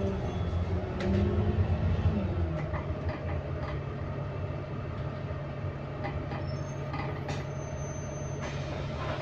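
Inside an ADL Enviro400 MMC double-deck bus with a Voith automatic gearbox: the drivetrain drones with a whine that holds for about a second, then falls away around two seconds in. After that the bus runs on more quietly with light rattles and clicks.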